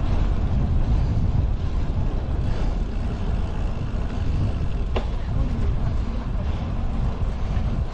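Wind buffeting the microphone of a camera on a moving bicycle: a steady low rumble. A single short click comes about five seconds in.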